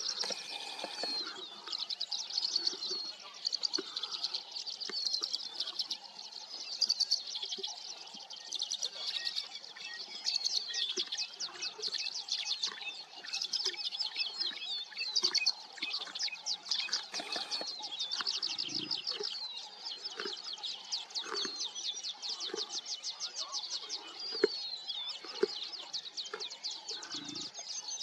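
A dense chorus of wild birds chirping and trilling without a break, many fast, high trills overlapping. A couple of brief low sounds come in underneath, about two-thirds of the way through and near the end.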